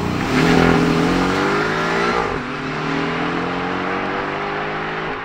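Porsche Cayman and BMW i8 accelerating hard from a standing start in a drag race: the engine note climbs, drops at an upshift a little over two seconds in, then climbs again.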